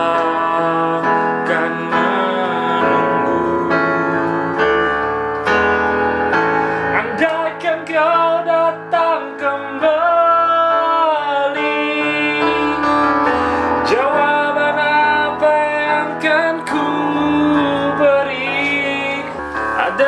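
Electronic keyboard playing sustained chords, with a man singing a slow pop-style melody over it.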